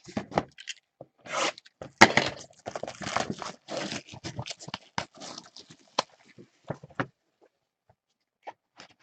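Plastic wrapping crinkling and tearing as a trading-card box is opened by hand, with sharp clicks and scrapes; the handling stops about seven seconds in.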